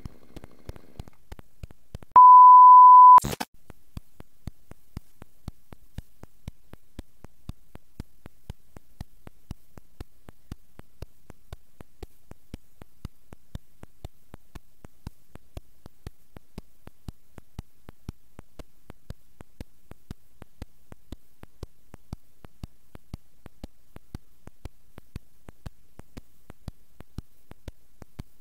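A loud, steady, single-pitched electronic beep lasting about a second, starting about two seconds in, followed by faint, even ticking at a few ticks a second.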